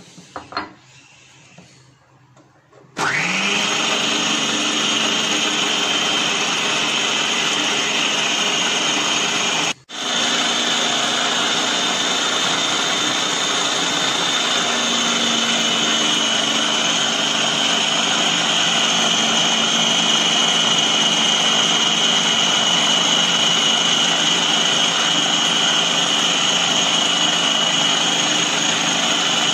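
Food processor motor starts about three seconds in with a rising whine and runs steadily, kneading flour, oil and water into dough. It drops out for a moment about ten seconds in and then runs on, a steady lower hum joining it a few seconds later as the dough comes together.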